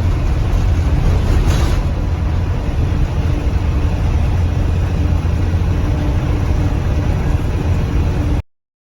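2020 Blue Bird Vision school bus running with a steady low rumble and a faint hiss, cutting off suddenly near the end.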